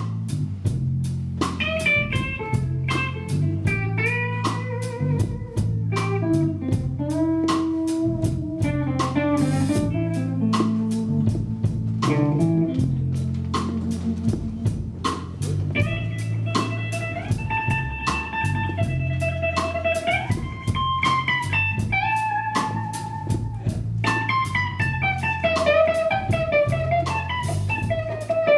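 Live blues-rock electric guitar solo over bass and drums: long sustained lead notes, some bent upward, over a steady bass line and a constant ride of cymbal strokes.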